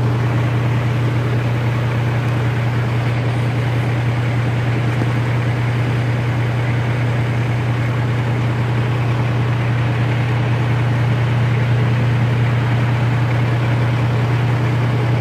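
Fire trucks' diesel engines idling, a steady low drone that does not change.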